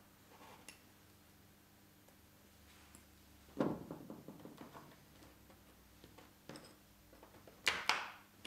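Leaded stained-glass panel being assembled: faint clicks and taps of glass pieces and lead came being handled and pressed into place, with a sharper knock about three and a half seconds in and two more near the end.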